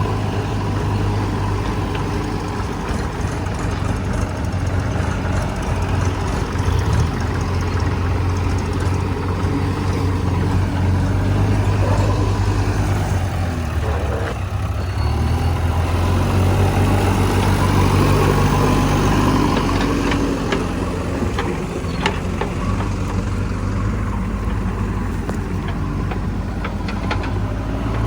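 Diesel engines of a JCB 3DX backhoe loader and a tractor running steadily. The revs change about halfway through and stay higher for a few seconds, as when the loader works its bucket.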